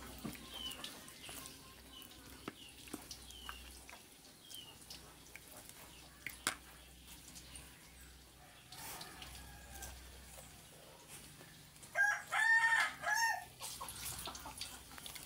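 A rooster crows once near the end, a long, loud, wavering call. Before it, faint high falling chirps repeat about once a second, along with a few light clicks.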